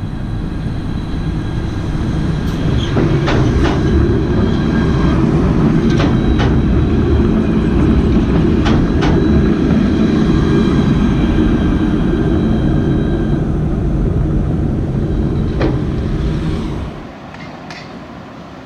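Alstom Citadis tram passing close by: a loud steady rumble of wheels on the rails, with a few sharp clicks as the wheels cross joints and several steady high whining tones over it. The rumble drops suddenly near the end to a quieter traffic background.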